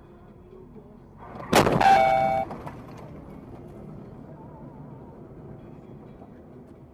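Car collision heard from inside the dashcam car: one sudden loud impact about one and a half seconds in, with a ringing tone for about a second, then steady road and engine noise.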